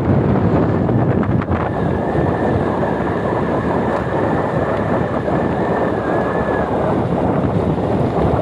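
Wind buffeting the microphone, a dense rumbling noise, with a faint steady high tone from about two seconds in until near the end.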